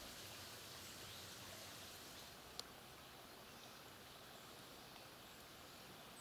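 Near silence: faint outdoor room tone, with a single short click about two and a half seconds in.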